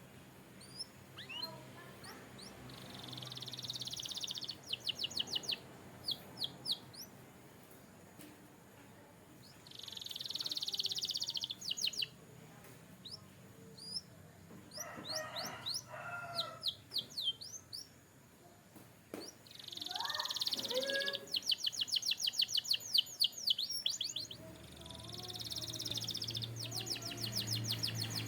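Canary singing: about four high phrases, each a buzzy rattle that runs into a fast string of quick sweeping notes, with a few lower calls in between.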